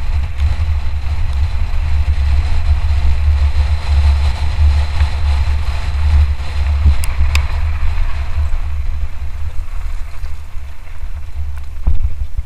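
Heavy wind rumble on the microphone over the tyre and trail noise of a mountain bike, a Lapierre Zesty, riding fast downhill. A couple of sharp rattling clicks come about seven seconds in, and a knock comes near the end.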